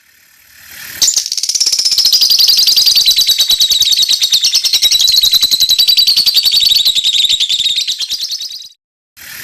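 A songbird singing one long, high-pitched, very rapid trill. It swells in over the first second, holds steady for about seven seconds, breaks off briefly near the end, then starts again.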